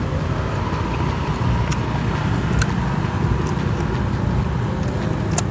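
Steady low rumble of background road traffic, with a few soft clicks from chewing close to a clip-on microphone.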